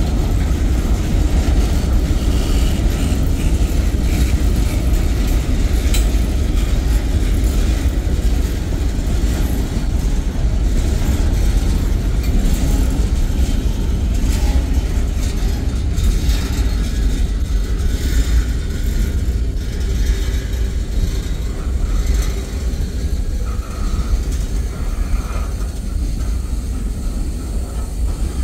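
Freight cars of a mixed manifest train rolling past: a steady low rumble of steel wheels on rail, with a few brief knocks.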